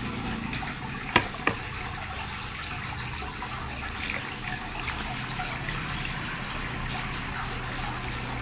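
Water running steadily from a tap while the dirty parts of a submersible pond pump are rinsed under it. There are two sharp clicks a little over a second in.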